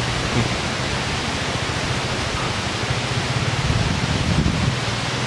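Steady rushing hiss with a low hum underneath it, unchanging throughout.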